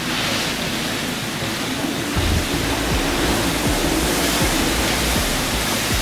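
Typhoon-force wind roaring in a steady rush, with deep, gusty buffeting on the microphone that grows stronger about two seconds in.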